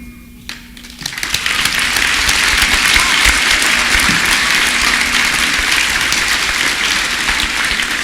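Audience applauding. The clapping swells in about a second in, as the school band's last note dies away, and stays steady.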